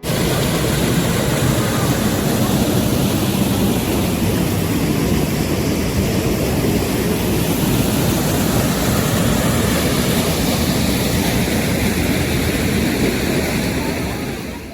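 Loud, steady rushing noise with no clear rhythm or pitch, cutting in and out abruptly.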